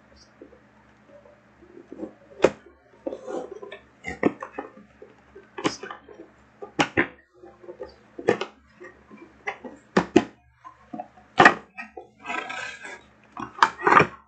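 Cardboard box being handled and opened: irregular knocks and taps on the cardboard, with scraping and rustling as the inner tray slides out and paper packaging is pulled free, busier near the end. A faint steady low hum runs underneath.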